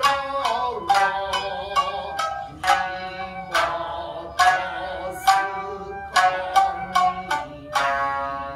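A shamisen ensemble playing traditional Japanese music: several shamisen struck together in sharp, ringing strokes about one to two a second, with a bamboo flute holding long notes over them.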